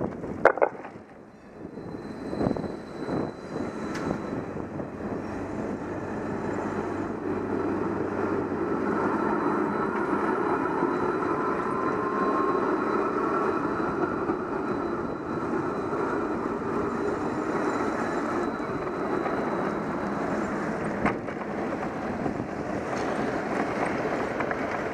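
A tram running past close alongside: a steady rolling noise that builds and holds through the middle, with a faint rising whine partway through, over wind and bicycle riding noise. A sharp knock comes right at the start.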